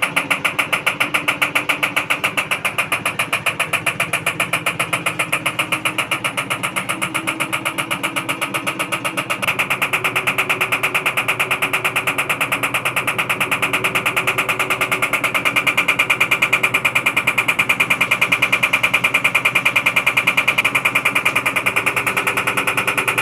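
IFB Executive Plus MSC 10 kg front-loading washing machine running with a steady, rhythmic knocking noise, about four to five beats a second, which grows louder about nine seconds in. This is the abnormal noise fault the machine has developed.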